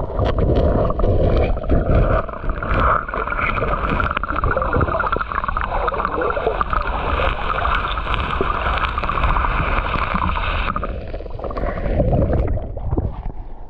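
Muffled underwater sound of shallow river water being churned by feet digging a pit in the sandy bed: a heavy low rumble with many small knocks and scrapes. A higher hiss over it stops about eleven seconds in.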